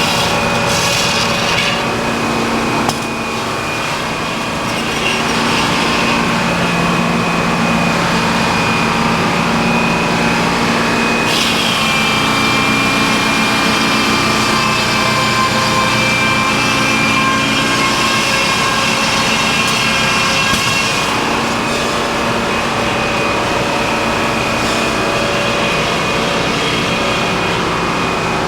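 Sawmill running and sawing a log, a steady loud machine sound with a constant high tone over a lower hum; it dips briefly about three seconds in and grows brighter and harsher about eleven seconds in.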